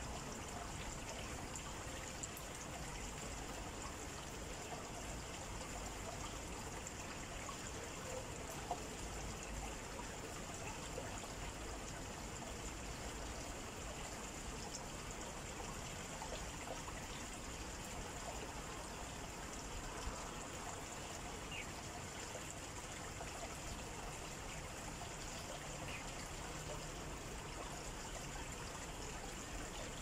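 Steady outdoor nature ambience: an even, unbroken rushing noise with a constant high-pitched hiss over it, like running water or wind in leaves, and a couple of faint ticks.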